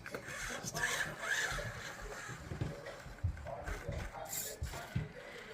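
Axial SCX24 1/24-scale RC crawler with a brushed motor and metal transmission, driving slowly: gear and motor noise mixed with irregular clicks and knocks from the drivetrain and tyres.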